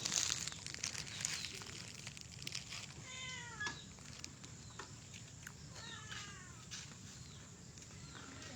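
A cat meowing twice, short falling calls about three and six seconds in, over faint background noise.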